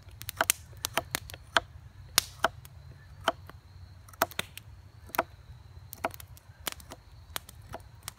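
A carbon-steel bushcraft knife (LT Wright Bushcrafter HC) cutting down into the end of a dry wooden bow-drill spindle held upright against a log, trimming it to a dull point. Each stroke gives a short, sharp click or chop, about two to three a second at uneven spacing.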